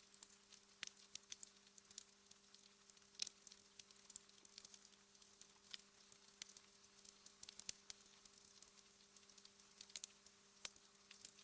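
Wood fire crackling in a fireplace: irregular sharp pops and snaps over a faint hiss, the loudest snap about three seconds in. A faint steady hum runs underneath.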